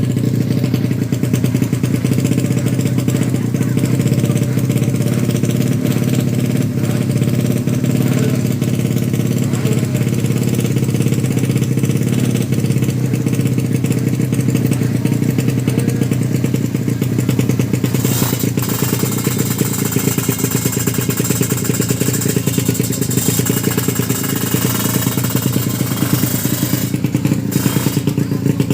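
Motorcycle engines running steadily, with a brighter hiss added for several seconds in the second half.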